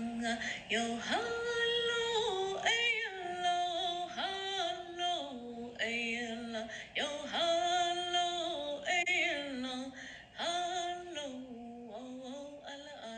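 A solo voice singing a wordless song of vocables, unaccompanied. It holds long notes that slide up into each new pitch, and grows softer near the end.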